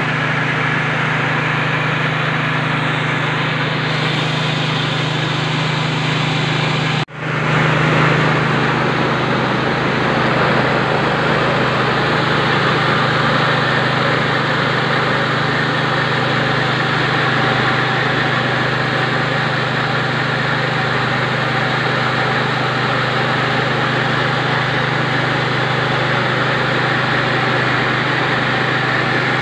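KD 820 Pro mini rice mill running steadily, its motor giving a constant hum under the rush of the milling and separating works. The sound cuts out for a split second about seven seconds in, then carries on unchanged.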